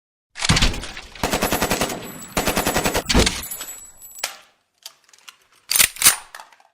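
Automatic gunfire in three rapid bursts of about ten shots a second, followed near the end by two loud shots in quick succession.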